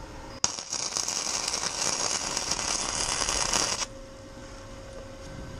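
Arc welding: a small welder's arc crackling and spitting as a pin is tack-welded onto a bolt. It starts about half a second in and cuts off after about three and a half seconds. The welder was set too hot for so small a weld.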